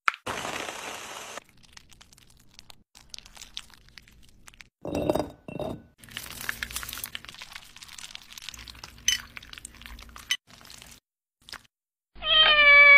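A hand blender runs for about a second over strawberries and condensed milk, then scattered glassy clinks and light knocks as tapioca pearls and glassware are handled. Near the end comes a short high-pitched call with a slightly falling pitch, the loudest sound.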